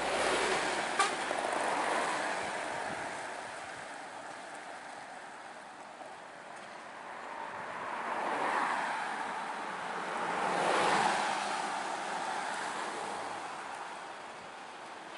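Road traffic: the engines and tyres of buses, trucks and cars swell and fade as they pass, loud at the start and again in two swells in the second half.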